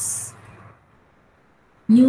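A woman speaking, her word trailing off with a hissing 's' at the start, then a pause of near quiet for about a second before she speaks again near the end.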